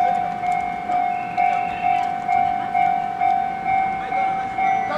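Japanese railway level-crossing warning bell ringing: a single electronic ding repeated evenly about twice a second. It signals that a train is about to pass the crossing.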